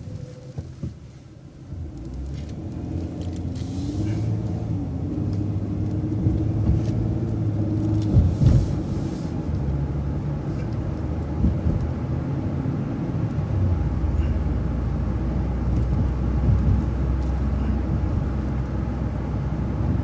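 City transit bus engine and drivetrain running as the bus drives along, the engine note rising as it picks up speed a few seconds in, under a steady low rumble with a few sharp knocks about eight seconds in.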